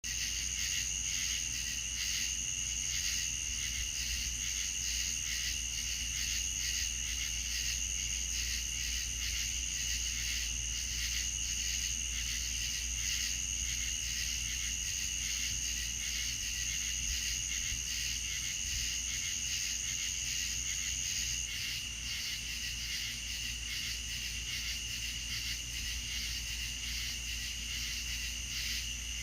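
Night chorus of crickets and other insects: several high-pitched trills layered together, steady throughout, with the highest one stopping about two-thirds of the way through, over a low rumble.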